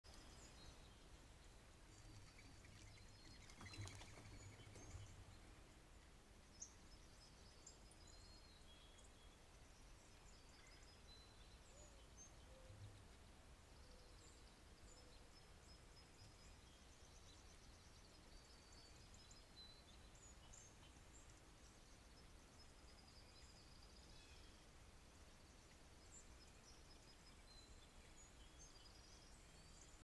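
Faint outdoor ambience: distant wild birds chirping and calling over a steady hiss, with a brief knock about four seconds in.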